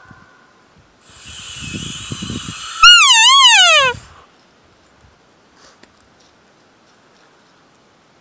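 Elk bugle. A raspy, rising build-up with low grunts leads into a loud, high whistle that wavers up and down and then slides down in pitch, ending about four seconds in.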